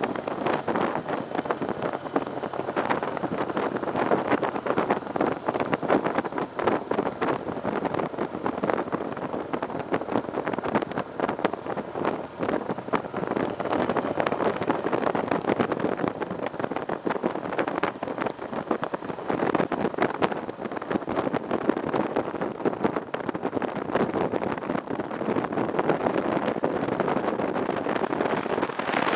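Cruiser motorcycle riding at road speed: a steady engine drone mixed with wind rushing and fluttering over the microphone.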